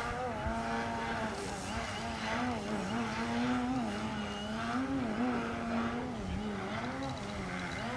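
Electric motor and propeller of an Extreme Flight MXS aerobatic radio-control plane in flight: a steady buzzing tone whose pitch dips and rises several times.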